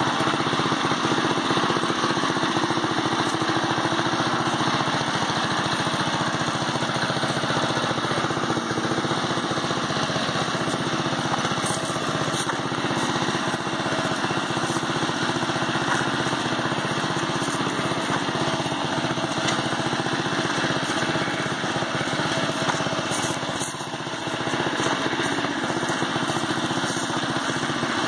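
Murray riding lawn mower's small engine running steadily as the mower drives along, dipping briefly near the end.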